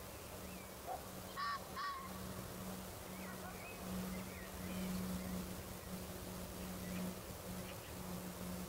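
A flying insect buzzing near the microphone, a steady low hum that swells and fades as it moves about. About a second and a half in, two short harsh calls are heard, with faint bird chirps a little later.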